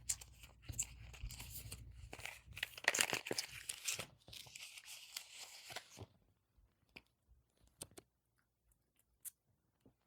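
Packaging being handled and torn open: crinkly tearing and rustling for about six seconds, then a few light clicks.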